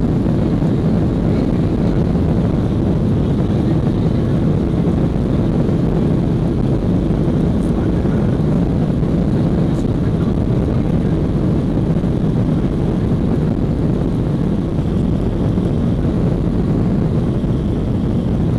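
Boeing 737-800's CFM56 jet engines heard from inside the passenger cabin during take-off: a loud, steady, low rumble that holds even throughout.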